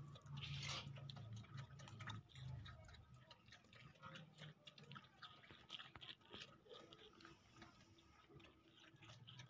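Goat kid eating cut watermelon from a steel bowl: faint, irregular wet chewing and crunching clicks, with the odd tap of its muzzle against the bowl.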